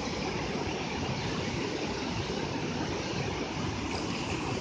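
Fast-flowing river water rushing steadily over rocks and through rapids.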